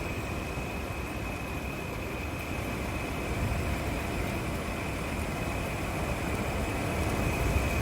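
Portable air conditioner running: a steady hum and rush of air with a thin, high whine held over it, growing slightly louder near the end.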